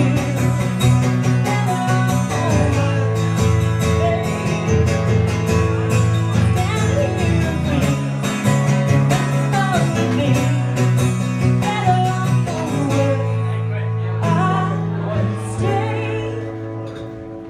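Music: rhythmically strummed acoustic guitar with a melody line over it. The strumming thins out near the end.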